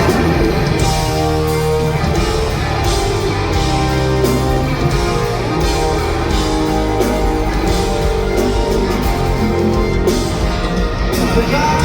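Loud pop-rock instrumental with electric guitar, bass and drums, no singing.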